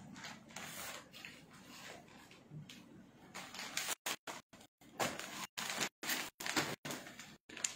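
Cloth being handled, a soft uneven rustling with a few light knocks, and the sound cutting out in short gaps again and again through the second half.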